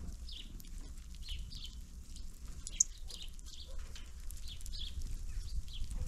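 Small songbirds at a winter bird feeder giving many short, high chirps in quick succession over a steady low rumble, with one sharp click about halfway through.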